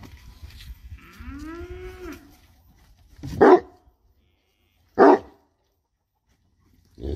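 An animal calling: one drawn-out call that rises and then falls about a second in, then two loud, short, bark-like calls about a second and a half apart.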